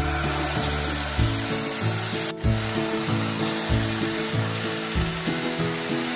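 Sauce and chicken sizzling in hot oil in a cast-iron skillet, stirred with a wooden spoon, with a short break in the sizzle about two and a half seconds in. Light background music with a steady beat plays underneath.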